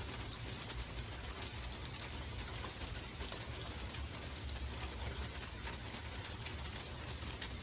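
Steady rain falling: a constant hiss dotted with many small ticks of separate drops striking a surface, over a low rumble.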